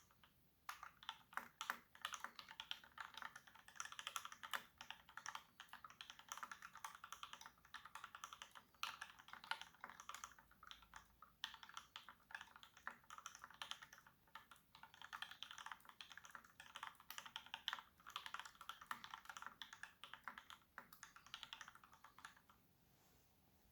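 Rapid typing on a Satisfaction 75 mechanical keyboard with a brass plate, lubed Gateron Ink Black linear switches and GMK keycaps: a dense run of key clacks that stops about a second before the end.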